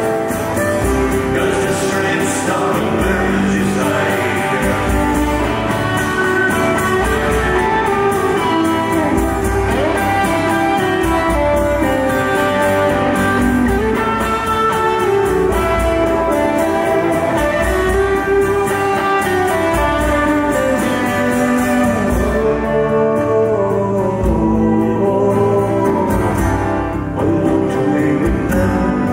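Live folk music: acoustic guitar played with singing.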